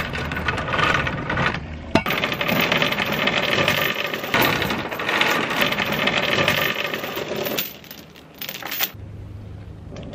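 Old steel anchor chain rattling and clinking link on link as it is hauled hand over hand out of the boat's anchor locker, with a sharp clank about two seconds in. The rattling thins out after about seven seconds and stops.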